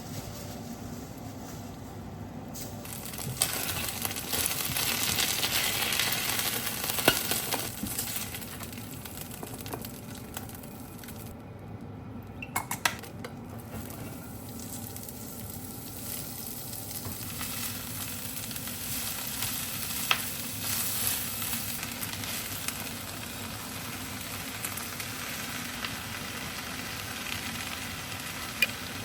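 Food sizzling as it fries in a pan, swelling louder a few seconds in and then settling, with a few sharp clicks of a utensil against the pan as it is stirred.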